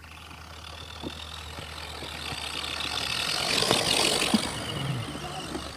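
Electric RC crawler truck driving through mud and puddles toward the camera. The high whine of its motor and gears mixes with splashing and tyre noise, builds as it comes closer, is loudest as it passes about four seconds in, then eases off.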